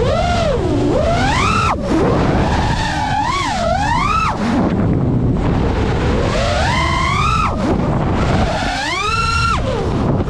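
FPV racing-drone motors whining, their pitch sweeping up and down four times as the throttle is worked, over a steady rush of wind and propeller noise.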